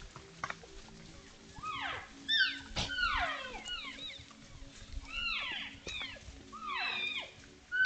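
Cow and calf elk mewing and chirping: many short, high calls that fall steeply in pitch, overlapping from several animals as the herd keeps in touch. A single sharp click comes about three seconds in.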